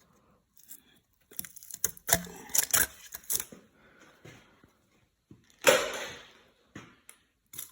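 Clicks and knocks of tools and metal engine parts being handled during an engine teardown, then one louder scraping clatter about two thirds of the way in.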